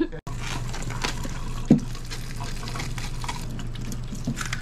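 Tap water running steadily into a stainless steel kitchen sink while vegetables are rinsed and handled under it, with a few light handling ticks and a steady low hum underneath.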